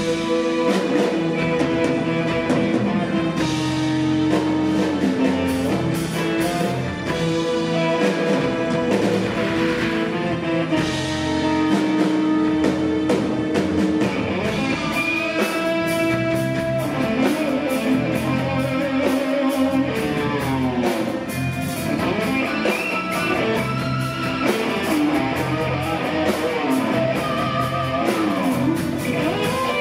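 Live rock band playing: electric guitar over bass, drums and keyboard, with sliding, bending guitar notes in the middle.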